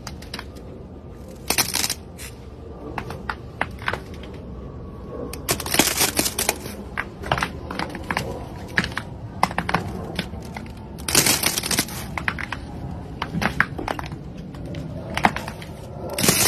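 A thin layer of ice coating a chair seat crackling and snapping as a fingertip presses into it and breaks it. The cracking comes in four bursts of sharp crackles, with single cracks scattered between them.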